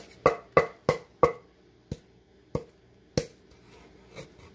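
Wooden pestle pounding smoked ehuru (traditional nutmeg) seeds and a fresh pepper in a mortar: sharp knocks, four quick strokes about three a second, then three slower, spaced strokes and a faint last one.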